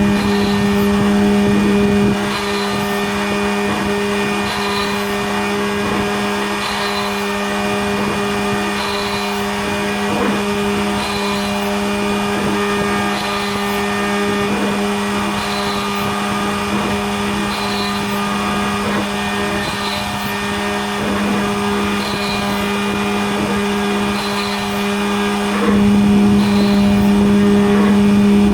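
Homemade Arduino-controlled CNC machine running, its motors giving a steady humming whine. The hum drops a little about two seconds in and rises again near the end, with a faint high chirp repeating about every two seconds.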